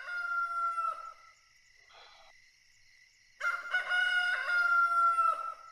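A rooster crowing twice, cock-a-doodle-doo, each crow ending on a long held note that slides slightly down. The first crow fades about a second in, and a second full crow starts about three and a half seconds in. The cockcrow signals dawn.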